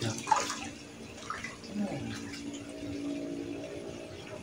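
A short splash in pond water a fraction of a second in, then quieter water noises.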